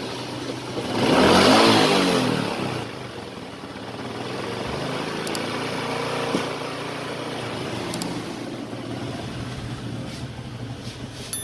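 Honda Supra X 125 single-cylinder four-stroke engine running, revved up and back down once about a second in, then idling steadily. It runs smooth, without the metal-on-metal grinding from the clutch case, which was traced to a worn bearing.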